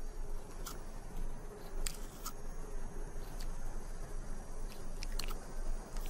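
Desert tortoise biting and chewing a prickly pear cactus pad: irregular crisp crunches and snaps, about eight over a few seconds.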